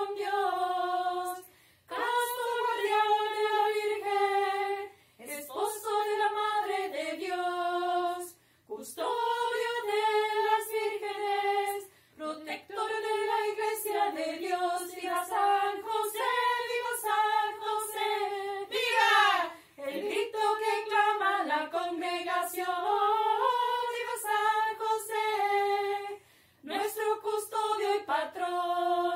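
A small group of women singing a melody together in harmony, without clear instrumental backing, in phrases broken by short breaths and pauses.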